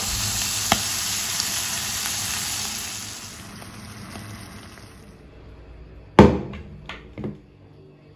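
Chicken and mushrooms sizzling in a nonstick frying pan as cream is poured over them; the sizzle is loud at first and dies away over a few seconds as the cream cools the pan. About six seconds in come three sharp knocks.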